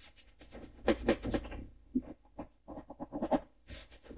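Cloth rubbing over an oak cabinet door in short, irregular bursts of scratchy strokes as the door is wiped down to prep it for painting.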